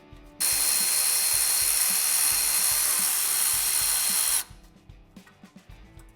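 Cordless power driver spinning a 7 mm socket to run down an exhaust-guard hose clamp. It runs steadily for about four seconds, starting and stopping abruptly, with a thin high whine over the noise.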